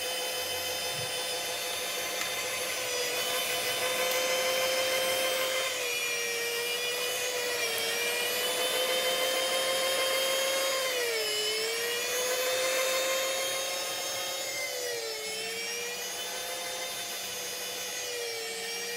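Bosch electric meat grinder running, mincing fried liver and vegetables: a steady motor whine whose pitch dips briefly four times as the motor slows under the load of food being pushed in.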